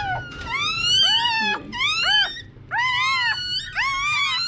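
Several newborn Miniature Pinscher puppies squealing: high, thin cries that rise and fall, overlapping one another in quick succession.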